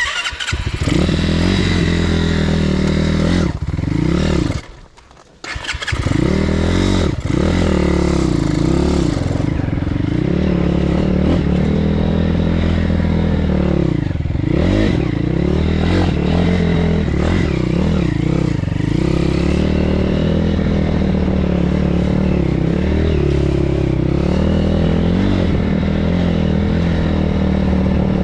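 BSE PH150 pit bike's 150 cc four-stroke engine starting, dropping out briefly about four and a half seconds in and coming back a second later, then running with the throttle rising and falling as the bike is ridden.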